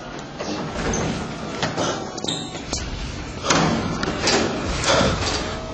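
Irregular thumps and knocks, the loudest about halfway through and near the end.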